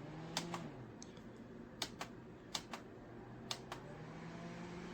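Plastic control buttons on a portable misting fan clicking, pressed and released in four quick pairs, with a faint low hum underneath.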